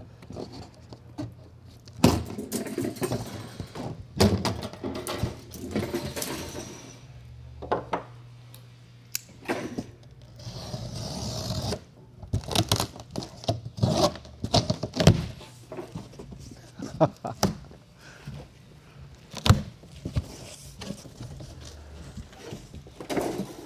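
A large cardboard box being cut open: sharp snaps of snips through plastic strapping, a knife slitting packing tape with a hiss of about a second and a half, and cardboard flaps scraping and thunking as they are folded back.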